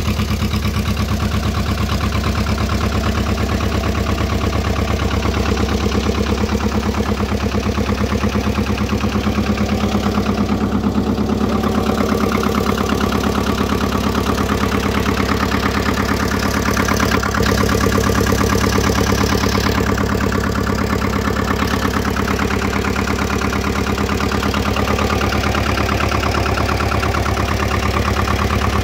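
Lombardini LDA 672 air-cooled two-cylinder diesel in a Valpadana 330 tractor, idling steadily as it warms up after a cold start in frost.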